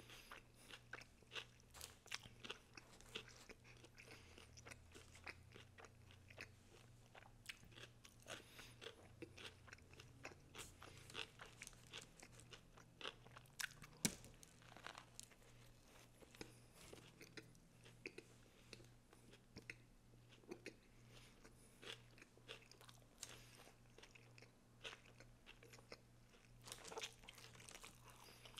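A person chewing a Subway footlong sandwich on Italian bread with raw vegetables, close to the microphone: quiet, irregular crunching and wet mouth clicks, with a louder bite about fourteen seconds in. A low steady hum sits underneath.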